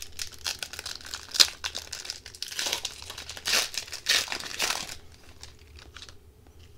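Foil wrapper of an Upper Deck hockey card pack crinkling and tearing as it is pulled open by hand, with a sharp rip about a second and a half in. The crackling dies down about five seconds in.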